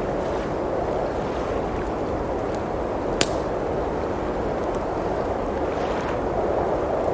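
Steady rushing of blizzard wind, with a wood fire crackling now and then, including one sharp pop about three seconds in.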